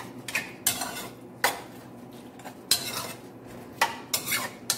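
A metal spoon stirring and scraping pieces of pork in a large stainless steel pot, with sharp clinks against the pot several times at irregular intervals.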